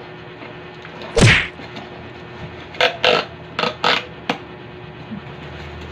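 A CPU tower cooler and its cardboard box being handled as it is packed back: one heavy thump about a second in, then a quick run of five short scrapes and knocks.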